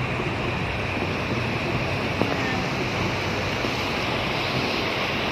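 Fast, muddy river water rushing past a concrete weir and churning into white foam, a loud, steady rush.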